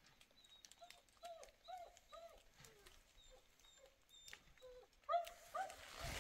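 A dog whimpering: a run of short, high whines, about two a second, starting about a second in and louder near the end.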